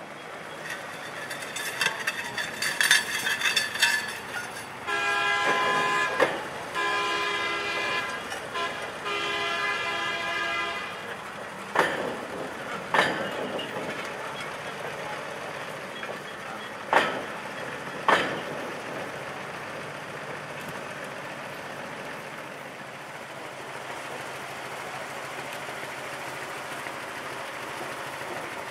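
Rio Grande Southern Galloping Goose rail motorcar sounding three horn blasts, then its engine running as it pulls off the turntable, with four sharp clanks of its wheels crossing the rail joints.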